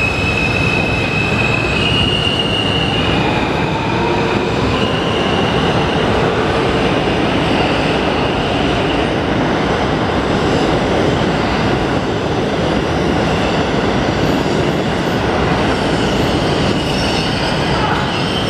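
R160 subway train accelerating out of an underground station: a high-pitched whine climbs in steps during the first few seconds over a steady, loud rumble of wheels on rail.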